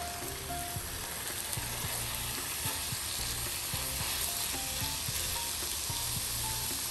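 Sewai vermicelli, pumpkin and moong dal sizzling steadily in ghee in a nonstick pan, stirred with a plastic spatula that scrapes and knocks softly against the pan.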